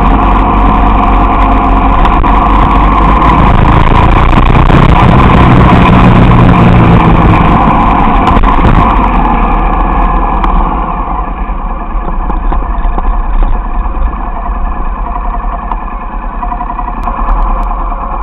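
Motorcycle being ridden, its engine running under heavy wind rush on the bike-mounted camera's microphone. The engine note is strongest a few seconds in, and about ten seconds in the sound drops and thins as the bike slows to a stop.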